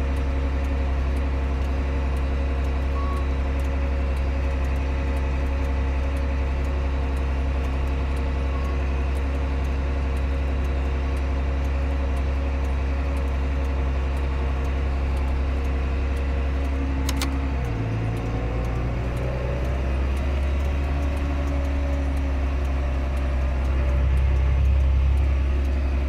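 Tractor engine running steadily under way, heard from inside the cab. About 17 seconds in there is a sharp click, and then the engine note drops and shifts before it settles again. It grows slightly louder near the end.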